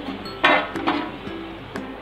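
Background music, with a steel ladle clattering a few times against a steel plate and a wok as pieces of boiled gram-flour dumplings are scraped in; the loudest clatter comes about half a second in.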